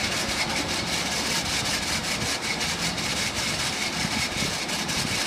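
Mulch-making line running steadily: a horizontal wood grinder, trommel and conveyors processing wood into mulch, with a dense, rapid clatter of wood material over the machinery's steady noise.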